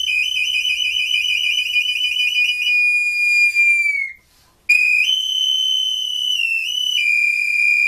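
A handmade multi-chambered whistle instrument is blown to imitate a small songbird. A high, pure whistle warbles in a rapid trill for about three seconds, then holds and sags slightly before stopping about four seconds in. After a short breath it sounds again on a steady high note with a couple of small dips in pitch.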